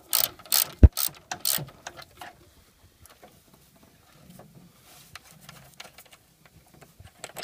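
Ratchet wrench clicking through a few strokes as a 10 mm fan-shroud bolt is backed out, with one sharp knock just under a second in. After about two seconds it goes quiet apart from faint handling sounds and a click near the end.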